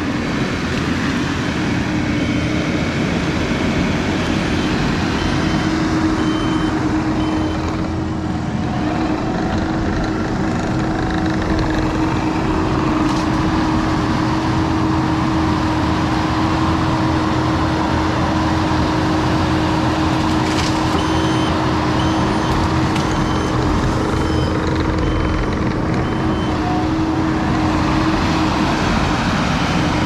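Kubota SVL95 compact track loader's diesel engine running steadily under load, with a steady hum throughout. Its backup alarm beeps in two stretches, early and again in the second half, and a couple of sharp knocks come through in the middle.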